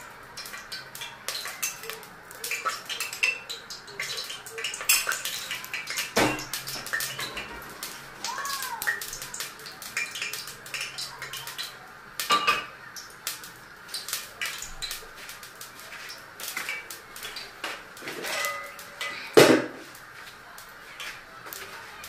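Kitchen clatter of pots, pans and metal utensils: many small clicks and clinks, with a few louder knocks, the loudest near the end.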